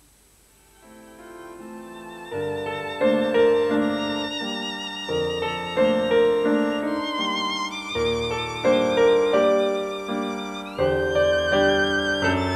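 End-credits music: a violin melody over piano chords, fading in about a second in and growing fuller at about two seconds.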